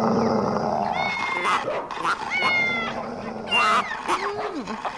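A cat meowing several times, high-pitched drawn-out calls about a second apart.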